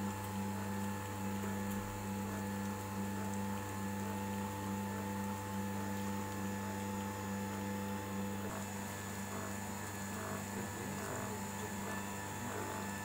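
Electric home oil press running while pressing sesame seeds: its motor-driven screw gives a steady hum with a slow pulse about twice a second. From about two-thirds of the way through, a faint regular ticking joins in at about the same pace.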